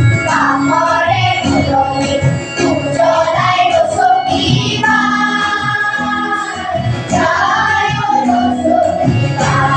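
Children's choir singing a song together in chorus through stage microphones. Their voices glide between notes and hold one long note about halfway through.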